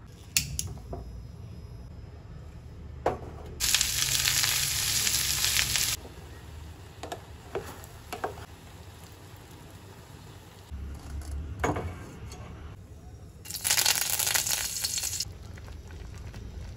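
Cooking in pots: two spells of food sizzling in hot oil, each about two seconds long, with short knocks of a spoon and ladle against the pots in between.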